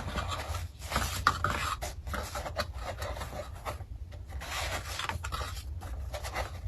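Guitar kit parts and their packaging being handled: irregular rustling and rubbing with short scrapes.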